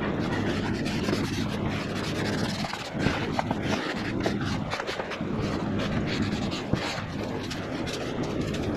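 Microfiber towel rubbing over black plastic cowl trim and its rubber seal, working in a trim conditioner: an irregular scuffing and swishing, over a steady low hum.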